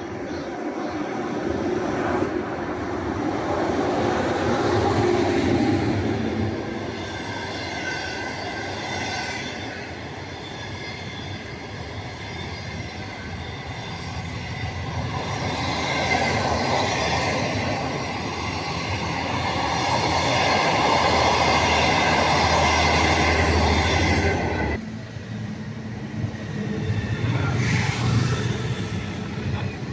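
An HXD3C electric locomotive hauling a train of green passenger coaches passes close by, its wheels running loudly on the rails, swelling as the coaches go by. About 25 seconds in, the sound drops suddenly and gives way to a CR400BF-G Fuxing high-speed train rushing past.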